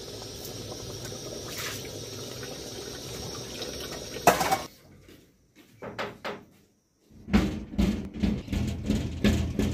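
A pot of soup cooking, with a steady bubbling hiss that ends in a sharp knock about four seconds in. After a brief gap comes a busy run of short knocks and clatter.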